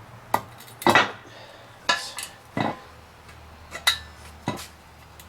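Sharp metal-on-metal clanks and clinks, about eight irregular strikes, a few ringing briefly: a small metal tube being crimped shut at its end.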